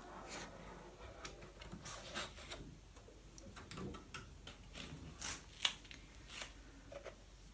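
Faint rubbing and scuffing of a cardboard headphone box and its clear plastic lid being handled and lifted off by hand, a scattered series of short scrapes.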